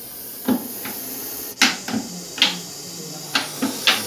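A series of about eight short, sharp taps, irregularly spaced.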